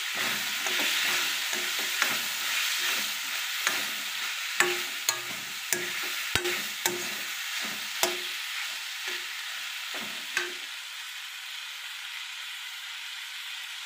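Chopped onions, tomatoes and green chillies sizzling in oil in a steel kadai while a steel spoon stirs them, scraping and clinking against the pan. The stirring stops about ten seconds in, leaving only the steady sizzle.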